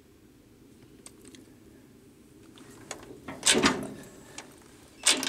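Farmall B tractor engine being turned over by hand for a compression test: two short bursts of metallic clanking and ratcheting, about a second and a half apart, after a few quiet seconds.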